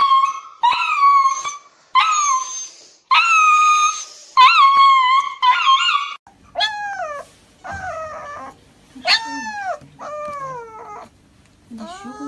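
A dog howling and whining in a string of high, drawn-out calls, about six in the first half. Then come shorter cries that fall in pitch, over a low hum.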